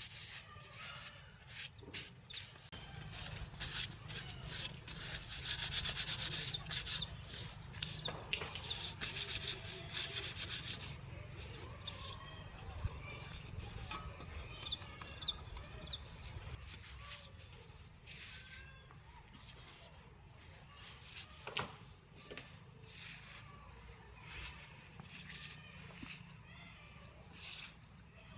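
Steady high-pitched chirring of crickets or other insects, with scattered clicks and knocks over it, most frequent about a fifth to a third of the way in.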